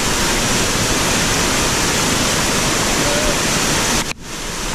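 Steady rush of white water in a river rapid. It drops away sharply for a moment about four seconds in, then returns.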